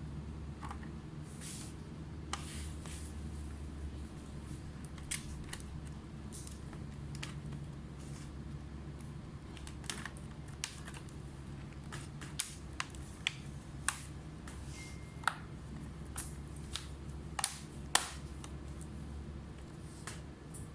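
Scattered small, sharp clicks and taps of parts being handled and fitted back into an opened laptop, more frequent in the second half with the loudest click near the end, over a steady low hum.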